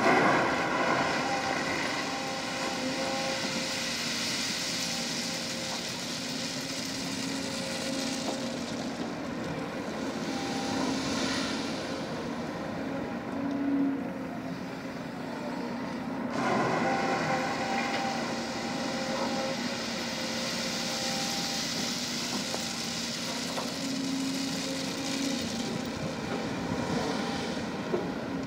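Volvo 210 hydraulic excavator's diesel engine running and working, with a steady hum that swells sharply at the start and again about halfway through as the machine takes load. Stretches of high hiss come and go over it.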